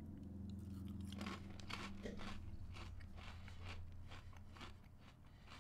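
A person crunching and chewing small fish-shaped Goldfish crackers, a run of faint crisp crunches that thin out and grow quieter toward the end.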